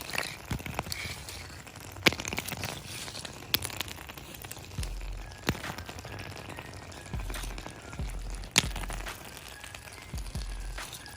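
Forged ice scraper chopping and chipping at compacted ice, giving irregular sharp cracks every second or two, with dull low thumps between them.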